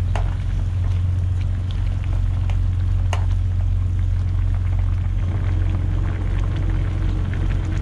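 Pot of kimchi stew with pork and tofu boiling, bubbling with scattered small pops, over a steady low hum.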